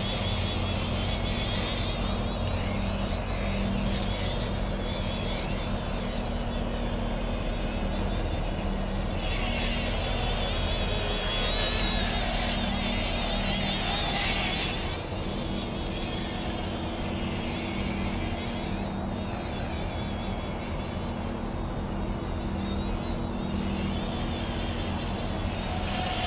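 Small electric RC plane motor and propeller whining, the pitch wavering up and down with throttle changes during 3D hovering and tumbling.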